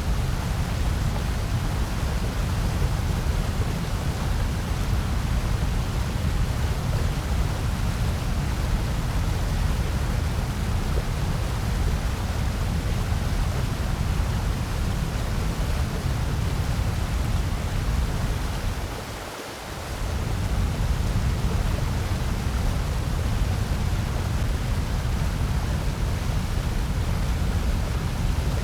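Steady synthetic noise of the kind sold as a white-noise sleep and focus track, a hiss weighted towards a low rumble. About 19 seconds in the low rumble briefly dips out for about half a second before the steady hiss resumes.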